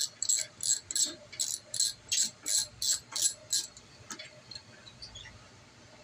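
Ratchet wrench with a 10 mm socket clicking in quick, even bursts, about three a second, as the handle is swung back and forth to loosen a bolt. The clicking stops about three and a half seconds in, leaving a few faint light ticks.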